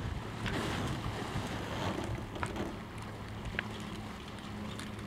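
Wind and sea noise heard from a boat at sea: an even rush with a steady low hum beneath it and a few short, sharp ticks.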